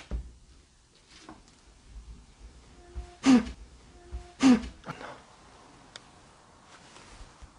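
Footsteps on a wooden floor, with two short, sharp throat-clearing-like sounds from a person, about three seconds in and again a second later.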